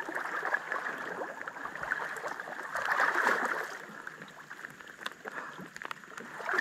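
Shallow water sloshing and gurgling around a person wading thigh-deep in mud beside a kayak, a little louder about three seconds in.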